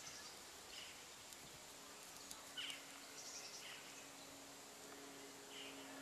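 Faint outdoor quiet with a few short, high bird chirps scattered through it, and a steady low hum that comes in about two seconds in.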